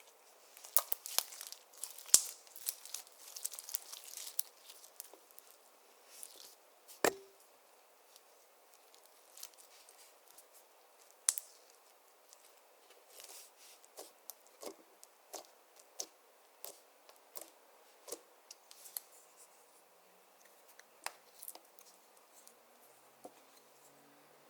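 Clear slime being worked by hand, making sharp little pops and clicks. They come in a dense run for the first few seconds, with a loud one about seven seconds in, then scattered ones roughly every second.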